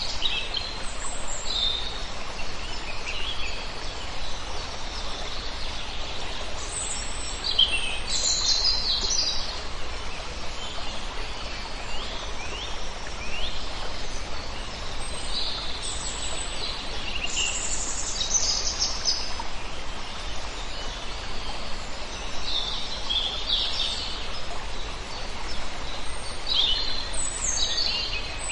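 Several wild birds chirping and singing in short calls, clustering into busier spells, over a steady background rush.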